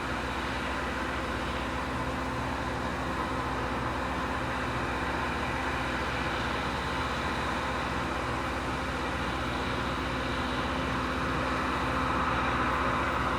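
Loram rail grinder at work: a steady, dense mechanical din of its running engines under a broad hiss, with several steady tones, swelling slightly near the end.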